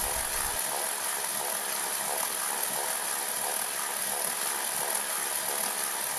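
Electric screwdriver motor and gearbox running steadily with a high whine, spinning a home-made coil-winding jig that lays fine copper wire onto the secondary winding of a magneto ignition coil.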